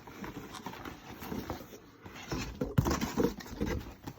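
Cardboard sneaker box being handled and opened: irregular rustling, scraping and light taps, with a few sharper knocks about two to three seconds in.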